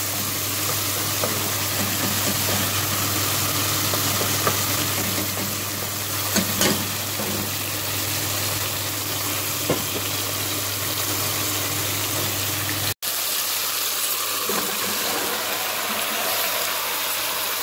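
Onion-tomato masala sizzling steadily as it fries in a pan, with a few light spoon clicks. There is a brief break about 13 seconds in, after which the frying goes on without the low hum that lay under the first part.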